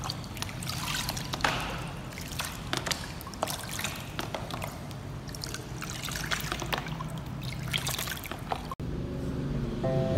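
Water poured from a cup trickling and splashing over a kitten standing in a plastic basin of bathwater, with many small splashes. Near the end the sound cuts off suddenly and music begins.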